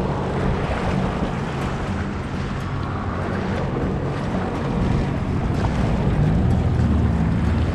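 Jet ski engine running steadily under way, with water rushing along the hull and wind buffeting the microphone; it gets a little louder about five seconds in.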